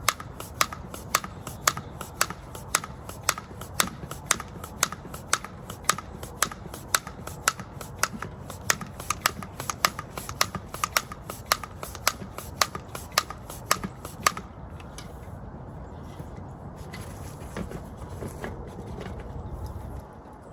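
Hand tire pump being worked stroke after stroke to inflate a bicycle inner tube, with a sharp click on each stroke about twice a second. The pumping stops near the end and gives way to quieter handling.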